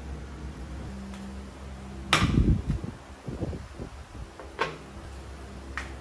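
Ceramic teacup and dishes knocking on a tabletop: one loud knock about two seconds in, then a few lighter clinks, over a low steady hum.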